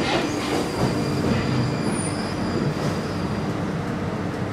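Northern line 1995 Stock tube train heard from inside the carriage, rumbling along the track with a steady whine over the noise, gradually quietening as it runs into the station platform.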